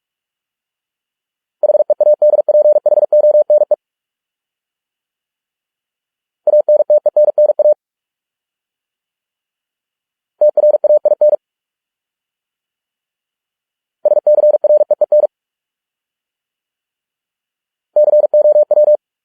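Morse code at 45 words per minute, sent as a single steady beep tone keyed in rapid dots and dashes. Five short words come about two to three seconds apart, with silence between them.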